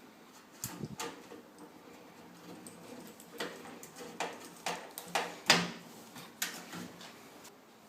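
Irregular light clicks and knocks from handling microwave oven parts during repair work, with the loudest knock about five and a half seconds in.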